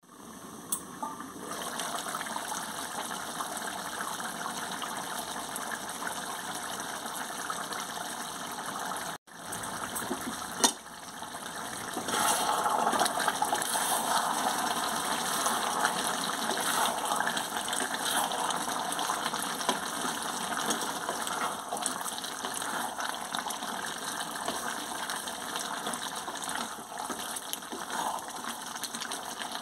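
Chicken and capsicum curry sizzling and bubbling in a metal wok over the flame, a steady hiss. It breaks off briefly about nine seconds in, a single click follows, and from about twelve seconds it is louder.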